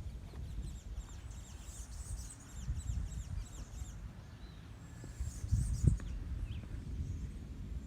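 Small birds chirping in quick runs of short, high, falling notes, in two bouts, over a steady low rumble that swells briefly about six seconds in.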